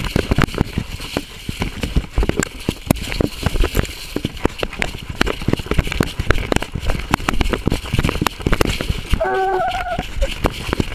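Walker coonhound's collar camera knocking and rustling as the hound runs a raccoon track, with a steady hiss behind. About nine seconds in, the hound gives one short bawl on the track.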